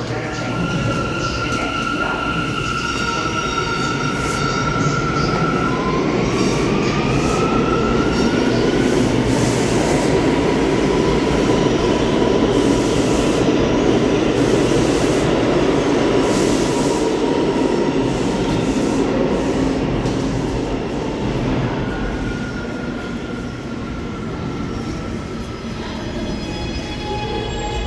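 New York City Subway R211 train in motion: a steady rumble of wheels on rails, loudest in the middle, with high whining tones at the start and end that rise in pitch at about seven seconds and again near the end.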